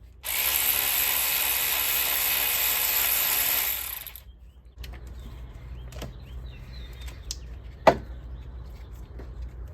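A power tool runs steadily for about three and a half seconds and stops, followed by a few light clicks and one sharp click near the end.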